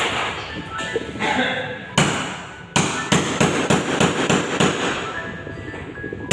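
A hammer striking overhead at a ceiling: a couple of single blows, then from about three seconds in a quick run of blows at roughly four a second.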